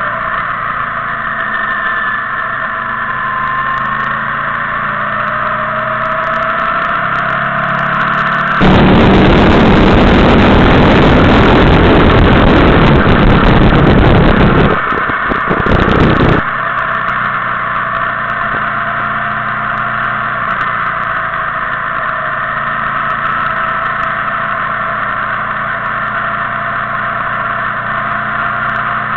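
Motorcycle engine running under way, its note slowly rising and falling with road speed. From about nine seconds in to about sixteen seconds, a loud rush of wind on the microphone drowns it out.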